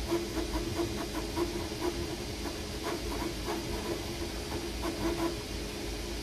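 Creality Ender-3 V3 KE 3D printer printing: its cooling fans hiss steadily under a constant hum, while the stepper motors give many short pitched chirps as the print head moves.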